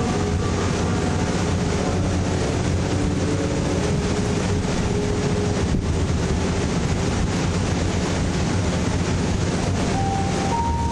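Steady roar of a glass studio's gas-fired furnace and glory hole burners and blowers, an even rumble with a low hum, while hot glass on a blowpipe is rolled on a steel marver.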